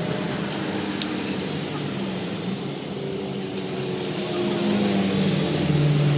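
Yamaha Mio i 125 scooter's single-cylinder four-stroke engine running steadily after its top overhaul, growing louder over the last few seconds.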